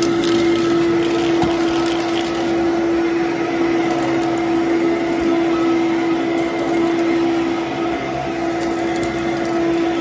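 Fantom Domestic 11-amp vacuum cleaner running steadily while vacuuming, its motor giving a steady whine over a rush of air, with a few faint ticks of debris. It has a new HEPA filter fitted.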